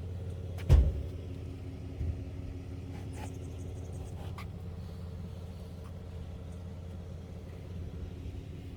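A vehicle engine idling with a steady low hum. A sharp thump comes a little under a second in, followed by a few lighter knocks.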